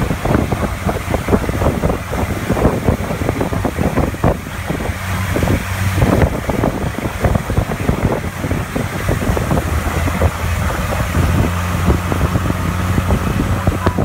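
Boat engine running steadily at cruising speed, a constant low hum, with water rushing and spraying along the hull.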